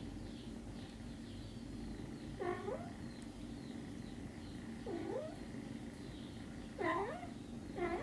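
Cat meowing four times, short calls a second or two apart with a pitch that dips and then rises, over a steady low purr from a mother cat nursing her kittens.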